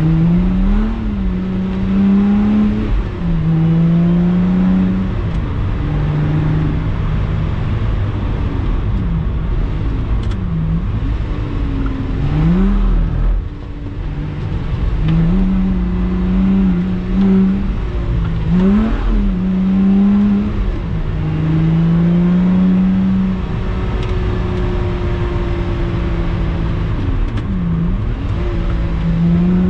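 Lotus Exige 350 Sport's supercharged 3.5-litre V6 engine under load, revving up and down over and over as the car is driven hard. The engine note holds for stretches, then drops sharply and climbs again several times, with a short lull about halfway through.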